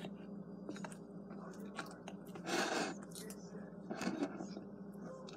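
A plastic spoon stirring and scraping a stiff flour, salt and water dough in a glass bowl: scattered clicks and short squishy scrapes, with a louder noisy scrape about halfway through and another around four seconds in.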